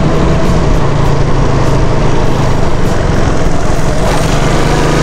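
Honda Super Cub C800's small single-cylinder four-stroke engine running steadily while riding along at road speed, with loud wind rush over the microphone.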